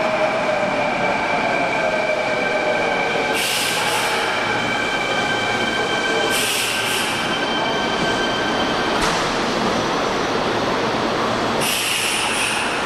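Kintetsu electric commuter train pulling into an underground station platform. Its motor whine falls in pitch as it slows, with high brake and wheel squeal and short hissing bursts about every three seconds.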